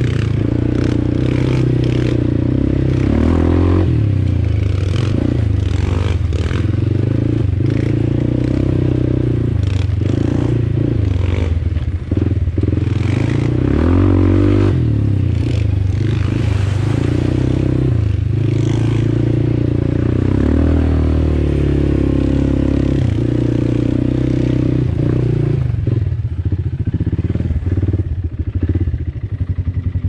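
Kymco Maxxer quad's single-cylinder engine running on a rough forest track, its pitch rising and falling with the throttle, with rattles and knocks from the machine over the bumps. Near the end it drops to a lower, evenly pulsing idle as the quad stops.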